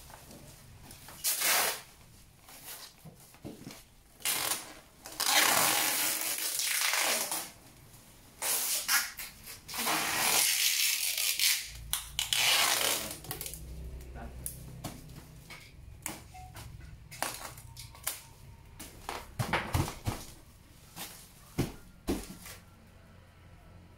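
Handling noise: rustling and scraping in irregular bursts of a second or more, with scattered knocks and clicks.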